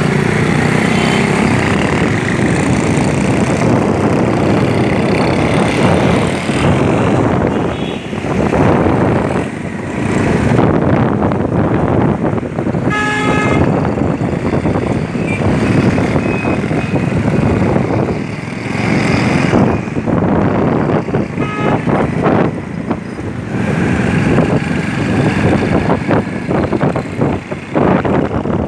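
Busy street traffic: motorcycles, auto-rickshaws and cars running past in a steady din. Horns toot now and then, one sounding clearly about halfway through.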